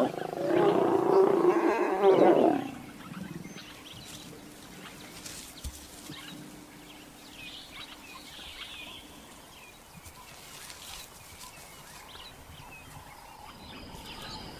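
Lions growling as they mate: one loud, rough snarling growl of about two seconds at the start, then only faint background.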